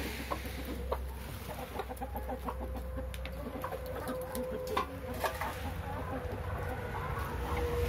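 Domestic fowl clucking in short, scattered calls, with a few sharp clicks among them.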